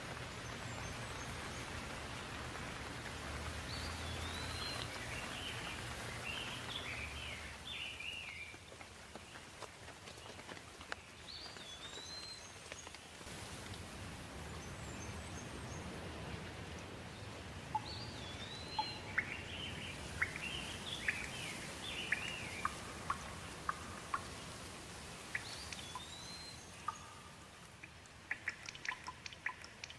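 Steady rain with birds singing short whistled phrases several times over. From a little past halfway, sharp drops of water drip close by, more often toward the end.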